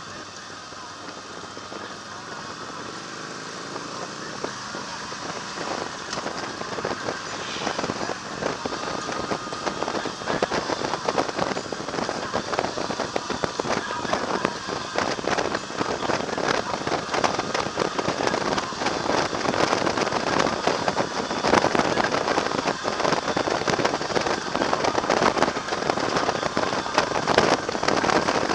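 Wind rushing and buffeting on a motorcycle-mounted camera's microphone, with a dense crackling texture, over the motorcycle running. It grows steadily louder as the bike picks up speed.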